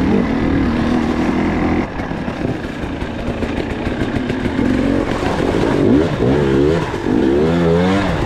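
Motorcycle engine running under way, steady for the first couple of seconds, then its revs rising and falling several times in quick succession over the last few seconds, over constant rushing noise.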